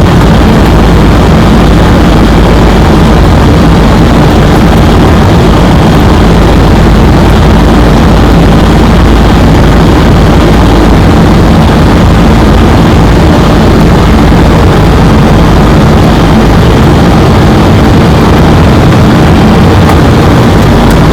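Loud, steady rumble and rushing air noise inside an airliner's cockpit, with no distinct events.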